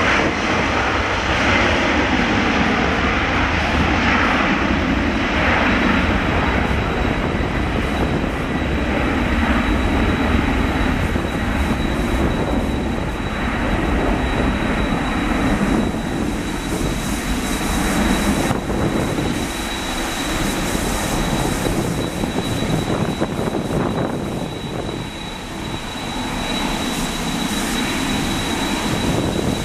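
Boeing 767-300ER's two GE CF6-80C2 turbofan engines at takeoff thrust: a loud, steady jet roar with a thin high whistle over it as the airliner rolls down the runway, lifts off and climbs away. The roar eases a little in the last several seconds.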